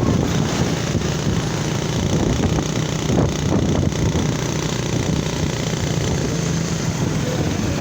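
A motor vehicle's engine running steadily with road noise, a little louder for a moment near the middle.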